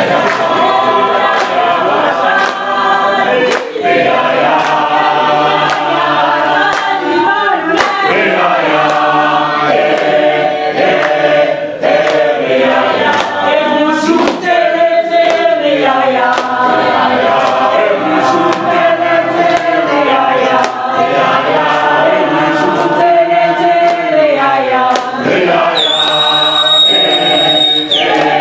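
A group of voices singing together in harmony, loud and steady, with no instruments. A steady high tone sounds for about two seconds near the end.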